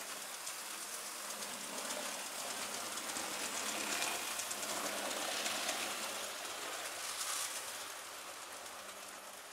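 Bachmann SR N class model steam locomotive (a 2-6-0 Mogul) hauling seven coaches along the track: a steady running noise of motor and wheels on rail, louder as it passes close in the middle and fading away near the end.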